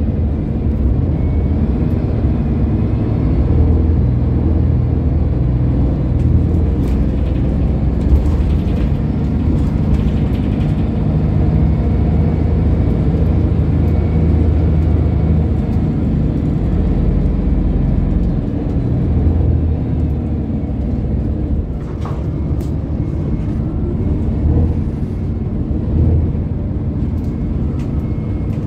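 Scania L94UB city bus running and driving, heard from inside the passenger cabin: a steady low engine and drivetrain drone mixed with road noise, with a few light knocks and rattles.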